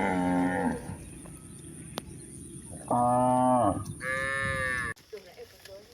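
Cows mooing: one long, falling moo at the start, then a deep moo about three seconds in, followed at once by a higher-pitched moo that cuts off abruptly near the end.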